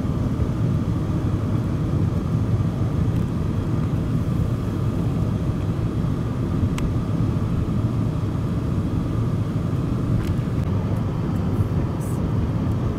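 Twin-engine jet airliner climbing out after takeoff: a steady, loud low rumble of its jet engines.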